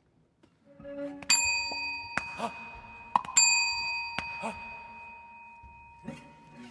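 Struck metal percussion rings out twice, about two seconds apart, each strike leaving a clear, bell-like high tone that slowly fades. A few short sharp knocks fall around the strikes, and a brief low pitched note sounds just before the first one.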